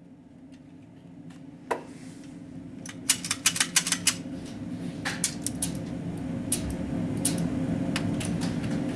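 Sharp metallic clicks and clacks of a pistol being handled at a shooting bench, with one ringing clack about two seconds in and a quick run of clicks about three seconds in. A steady low hum grows louder underneath.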